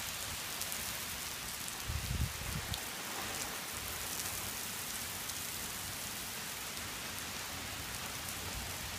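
Steady rain falling, an even hiss, with a brief low rumble about two seconds in.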